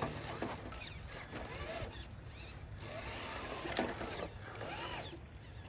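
Scale RC crawler's electric motor and gear drivetrain whining in short bursts, its pitch rising and falling with the throttle, with a few clicks as the truck works over the trail.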